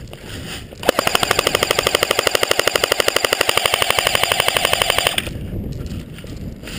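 Airsoft rifle firing one long full-auto burst of rapid, evenly spaced shots. The burst starts about a second in and stops after about four seconds.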